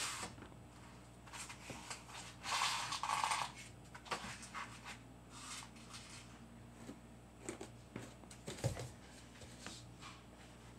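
Scattered rustles and small knocks of someone moving about and handling things. A longer rustling, sliding noise comes about two and a half seconds in, and a low thump comes near the end.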